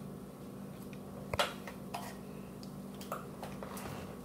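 Light clicks and taps from hands on the closed plastic lid of an electric sandwich grill, the sharpest about a second and a half in, over a steady low hum.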